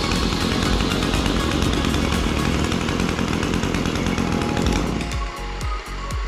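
Brush cutter engine running under background music; the engine sound stops about five seconds in, leaving only the music with its beat.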